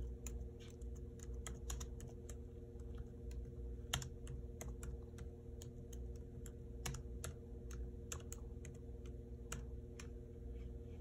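Laptop keyboard being typed on, an irregular run of light key clicks over a steady low hum.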